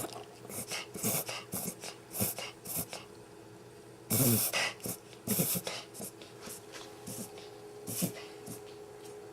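Puppy coughing in a series of short, irregular bursts, the loudest about four seconds in, just after a brief lull.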